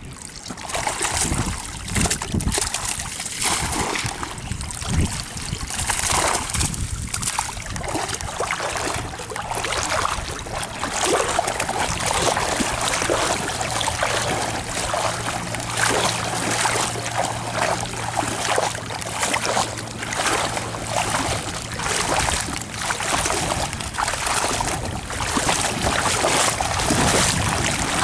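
Water splashing and sloshing, with many short, irregular splashes.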